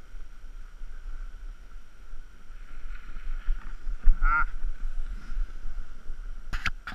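Skis sliding over packed snow with a steady hiss, and wind buffeting the body-mounted camera's microphone with a low rumble. A short vocal call about four seconds in, and a sharp knock near the end.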